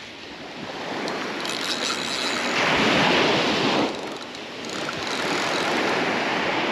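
Small surf waves breaking and washing up a sand beach. The wash is loudest around three seconds in, drops off, then builds again toward the end.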